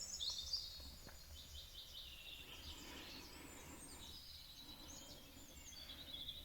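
A chorus of songbirds chirping and whistling, with many short, high calls overlapping.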